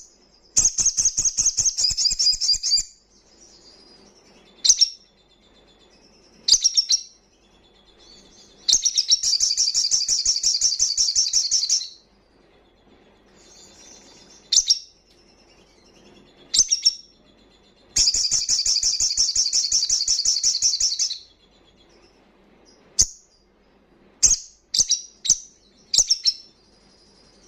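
A caged male olive-backed sunbird (sogon) singing loudly. It gives three rapid, high trills of about three seconds each, with single short, sharp high chips between them and a quick run of chips near the end.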